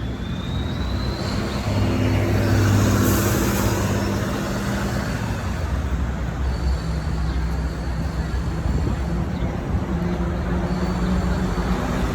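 Road traffic: a steady wash of passing vehicles, with one heavy engine running loudest about two to three seconds in.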